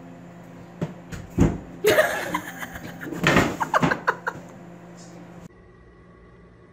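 A person laughing in loud bursts, just after two sharp knocks.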